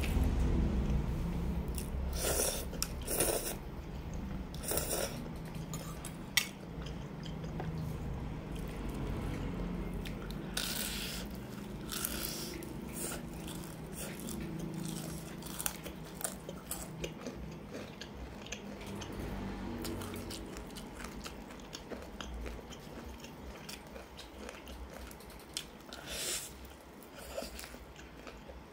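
Eating sounds from spicy instant noodles and crispy fried chicken: steady chewing, broken by sharp crunchy bites several times.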